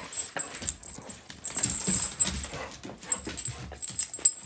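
Two dogs, a golden retriever and a smaller dog, scuffling and playing, with a busy patter of paws and claws clicking on the floor and a denser flurry of scuffling about one and a half seconds in.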